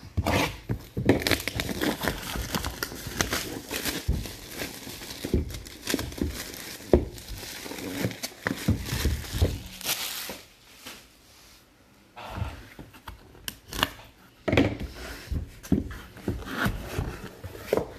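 Wrapping on a sports card box being torn open and crumpled: bursts of crinkling and tearing, with a quieter stretch about halfway through.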